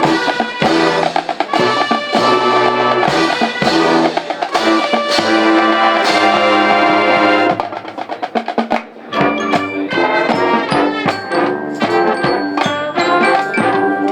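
High school marching band playing: loud, sustained full brass chords with drums. About halfway through, the full chords drop away into a lighter passage of quick, short, high notes.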